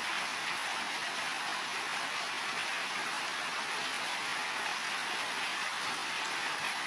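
Heavy rain falling steadily on building roofs, a dense, even hiss of drops with no thunder.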